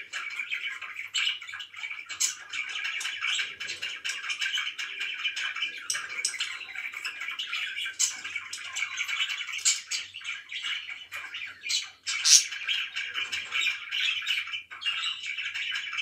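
Several budgerigars chattering and chirping without a break: a dense, high twittering warble full of quick sharp clicks and chirps. One louder sharp chirp comes about twelve seconds in.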